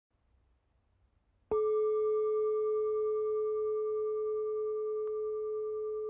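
A singing bowl struck once about a second and a half in, then ringing on with a steady low tone and fainter higher overtones.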